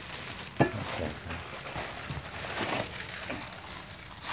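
Clear plastic wrapping crinkling and rustling as a plastic-wrapped alloy motorcycle rim is handled in its styrofoam-lined cardboard box, with one sharp knock a little over half a second in.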